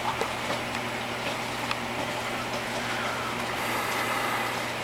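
Aquarium filter running: a steady hiss of moving, bubbling water over a constant low pump hum, with a few faint clicks.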